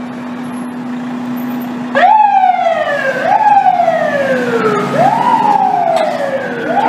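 Fire engine siren, quiet for about the first two seconds, then sounding in four repeated sweeps, each jumping up quickly and sliding down over about a second and a half, over the low steady hum of the truck.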